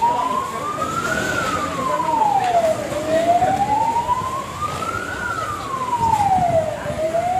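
A siren wailing, its pitch sliding slowly up and down, each full rise and fall taking about four seconds.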